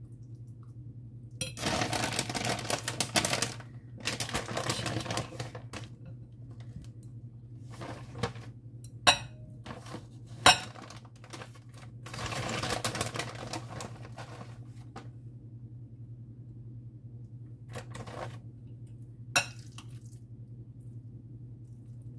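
Metal spoon scraping rice-and-meat filling out of a glass mixing bowl in three spells, with a few sharp clinks of spoon on glass. A steady low hum runs underneath.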